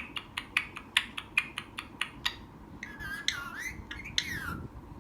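Parrot making a quick run of sharp clicks, about five a second, for a couple of seconds, then a few short warbling calls that glide up and down in pitch.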